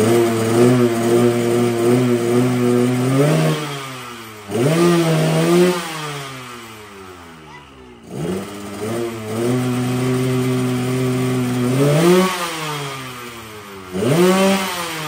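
Yamaha RX-King 135 single-cylinder two-stroke with a Medan-style 'ngorok' exhaust, revved in two similar rounds: engine speed held steady for about three seconds, swept up and let fall, then a short blip that drops away again.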